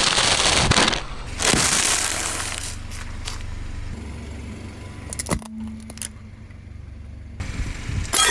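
A car's tyre rolling over objects and crushing them: two loud crunching passes in the first couple of seconds, then scattered cracks and clicks over the low running of the car's engine.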